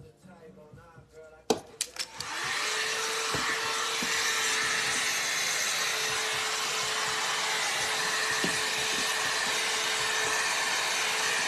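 Hot-air blow-dry brush starting up after a click about two seconds in, then running steadily: an even rush of blown air over a steady motor hum.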